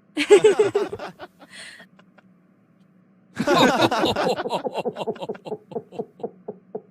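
Laughter sound effects: a short burst of laughing, then after a pause a longer laugh whose 'ha' pulses slow and fade toward the end. A faint steady low hum runs underneath.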